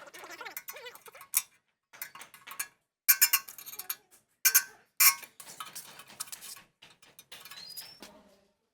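Irregular sharp metallic clinks and taps of small hard parts being handled, with the loudest strikes about three, four and a half and five seconds in.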